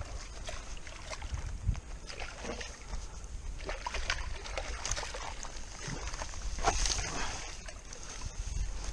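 A hooked golden perch (yellowbelly) sloshing and splashing at the creek surface as it is played in on a spinning rod, in a run of uneven splashes and small knocks; the biggest splash comes about two-thirds of the way through.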